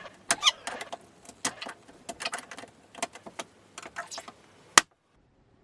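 Small hard parts clicking, knocking and rattling as a monitor is being taken apart, with a short squeak about half a second in. A single sharp click near the end, the loudest sound, is followed by a sudden cut to silence.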